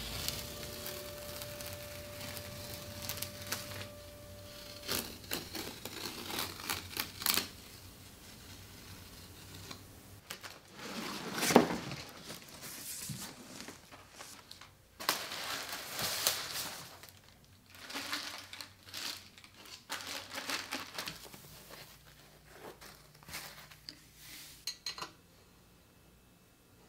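Plastic wrap and cardboard packaging of a flat-pack desk crinkling, rustling and tearing as it is opened, in irregular bursts with one sharper, louder crackle a little before the middle.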